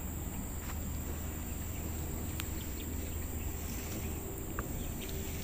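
Field ambience in a ginger plot: a steady low rumble on the microphone under a high, steady insect drone, with a few faint clicks as the ginger leaves brush past.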